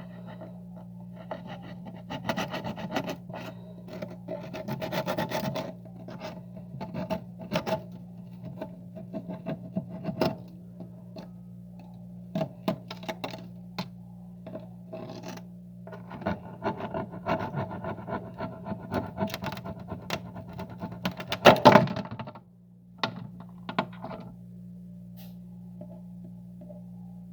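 Frost being scraped off the inside of a freezer: rasping, scratching spells broken by sharp knocks and taps, the loudest near the end, over a steady low hum.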